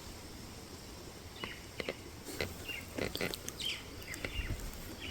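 Small birds chirping in short calls, most of them between about one and a half and three and a half seconds in, over a steady outdoor hiss.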